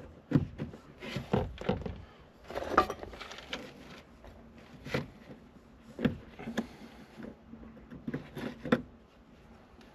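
Irregular metallic knocks and clinks, about ten in all, as the new accelerator pedal and its throttle cable are tapped and worked into place. They stop about nine seconds in.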